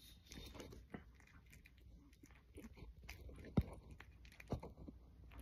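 A cat chewing and biting bread close to the microphone: faint, irregular small clicks and crunches, with two louder knocks in the second half.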